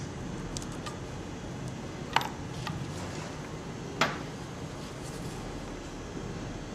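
Two sharp clicks, about two seconds apart, of small hard parts and a hand tool knocking together as pressure switches are fitted into a transmission control module, with a few fainter ticks of handling between them.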